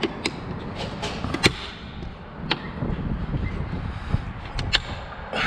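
Flat plastic trim tool prying at the back cap of a Ford F-150 side mirror: scattered sharp plastic clicks and taps, the loudest about a second and a half in, over a low handling rumble.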